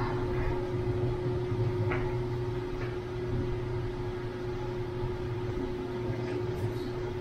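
Steady mechanical hum of a room air-conditioning unit, with a few faint rustles of clothing being adjusted.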